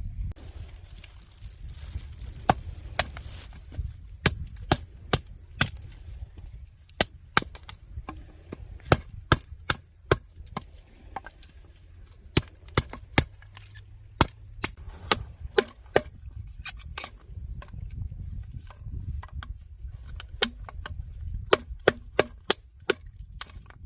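Wood being chopped: repeated sharp strikes on wood in irregular runs of a few blows, with short pauses between runs.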